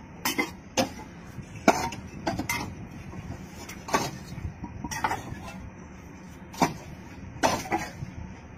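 Hollow fired-clay bricks clacking against one another as they are caught and set down on a stack: sharp, irregular knocks about one to two a second, over a steady low background noise.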